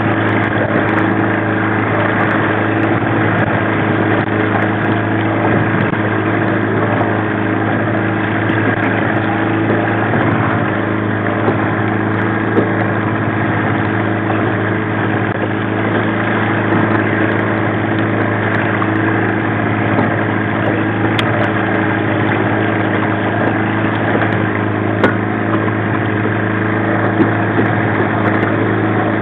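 15 hp Mariner two-stroke outboard running steadily at a low trolling speed, its pitch holding constant.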